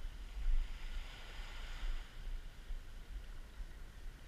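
Wind buffeting the microphone with a gusty low rumble, over the soft hiss of small sea waves washing in. The hiss swells about a second in.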